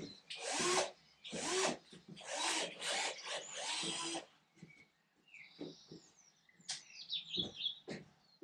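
About five rasping, scraping strokes over the first four seconds, like a file or abrasive worked against metal, then a few light clicks.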